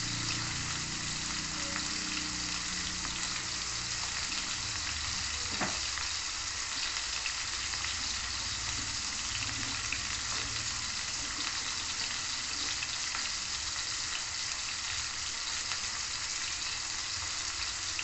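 Diced pork sizzling steadily as it fries in a steel wok on a gas burner.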